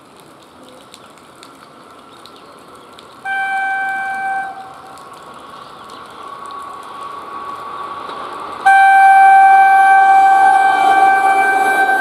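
WAP-4 electric locomotive approaching at speed and sounding its horn: a short blast about three seconds in, then a long, loud blast from about nine seconds that carries on past the end. Under the horn is a growing rumble of the train on the rails.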